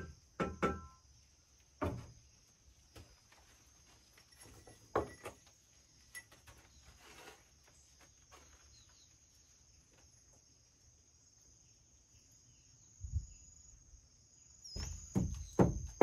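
Bricklaying knocks: a trowel and bricks knocking against each other as bricks are set in mortar, a few scattered knocks early, a quiet stretch, then a quick run of taps near the end. A steady high insect drone runs underneath.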